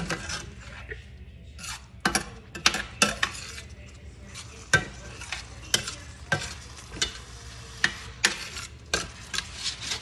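Metal spoon scraping and knocking against a stainless steel skillet as ground pork sausage and diced tomatoes are stirred, in repeated irregular strokes over a steady sizzle from the pan.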